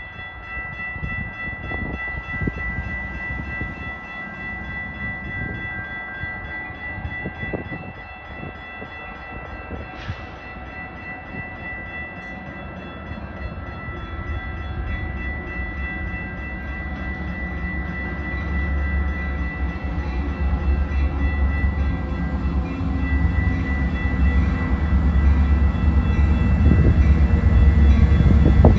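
Metra diesel locomotive approaching: its low engine and rail rumble grows steadily louder as the train closes in. A steady mix of high tones sounds alongside it.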